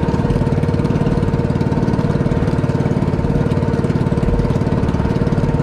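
Small boat engine of an outrigger boat running steadily under way, its firing pulses even and unbroken, with water splashing against the hull and outrigger floats.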